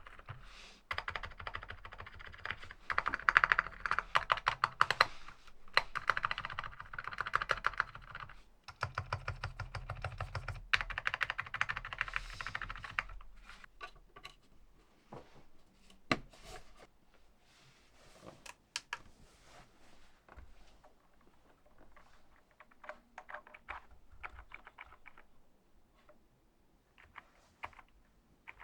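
Typing on an SPM AL87A full-aluminium 87-key mechanical keyboard. Fast runs of keystrokes fill the first half, then give way to slower, sparser and quieter keypresses.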